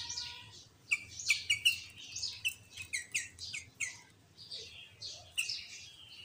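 Sooty-headed bulbul (kutilang) singing continuously: rapid chirps and quick downward-sweeping whistled notes, its song filled with mimicked greater green leafbird (cucak ijo) phrases. The notes come thickest from about a second in, thin out past the middle, then pick up again near the end.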